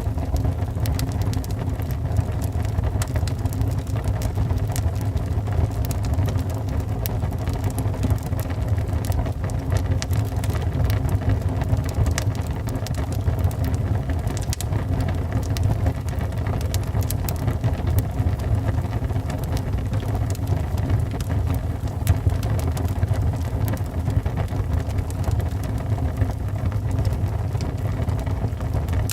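Wood fire burning in a fireplace: a steady low rumble with many small, irregular crackles and pops of burning wood.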